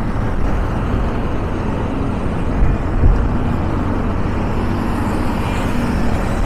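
Steady rush of wind and engine noise from a motorcycle running at highway speed, heard from the rider's seat.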